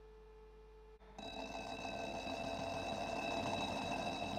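About a second of near silence, then a watch-case lapping machine starts up and runs: a steady high whine over a hiss as the spinning holder carries the case.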